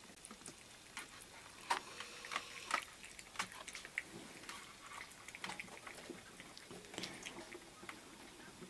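Several domestic cats eating wet food of fish and cottage cheese with milk from plates. The sound is irregular wet smacking, lapping and chewing clicks.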